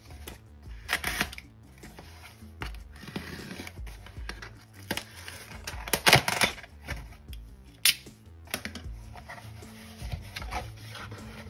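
Packing tape on a cardboard mailer being slit with a folding knife and the cardboard flaps pulled open: a run of scrapes, rips and clicks, the loudest about six seconds in.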